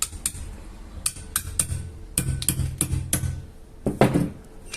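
Hammer tapping on a small socket to drive a 607 ball bearing down into a hand blender's housing: about a dozen sharp metallic taps, unevenly spaced, some ringing briefly.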